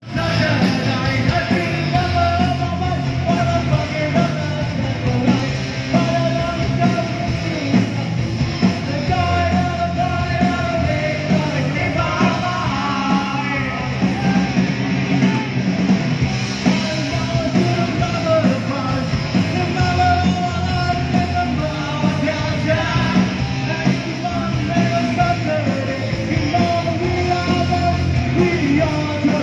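Live punk rock band playing: a singer shouting the vocal into a microphone over electric guitars.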